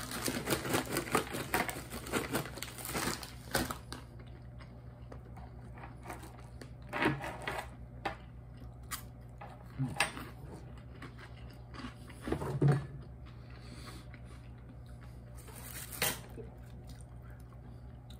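Close-up eating and handling of a paper-wrapped sausage sandwich and chips: a dense run of crinkling and crunching for the first few seconds, then a few scattered rustles and knocks, over a faint steady hum.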